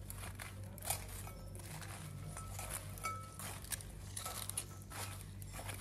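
Faint, scattered clinks and rustles of serving utensils tossing lettuce and croutons in a salad bowl.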